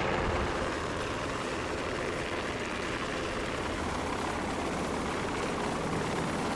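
UH-60 Black Hawk helicopter on its approach to land, with a steady noise of rotor and turbines.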